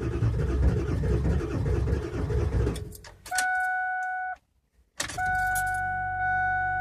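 Ford 7.3 L Power Stroke V8 diesel cranking hard on a cold start for about three seconds without catching, typical of bad glow plugs. When the cranking stops, a steady high-pitched electrical buzz sounds, unrelated to the engine, and cuts out briefly before returning.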